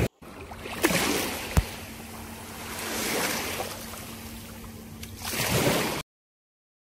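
Small waves washing on a sandy shore, the surf swelling and fading about every two seconds, with two brief knocks in the first two seconds. It cuts off abruptly about a second before the end.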